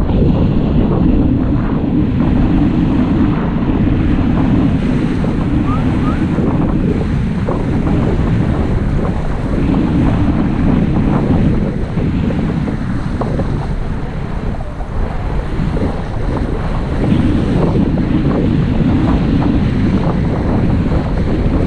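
Wind buffeting the microphone of an action camera mounted on a windsurf mast, swelling and easing every few seconds, over water rushing and splashing under the moving board.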